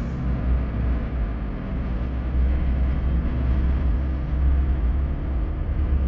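Steady road and engine noise inside a moving car's cabin, with a deep rumble underneath.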